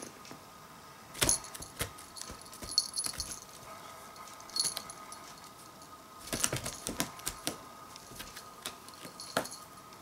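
Small metal jingling from a cat's collar in short irregular bursts as the cat moves and bats at a moth, with a few soft thumps of its paws on foam floor mats.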